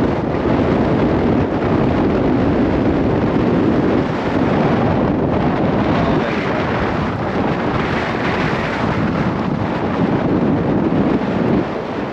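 Strong wind buffeting the microphone: a loud, unbroken rushing noise.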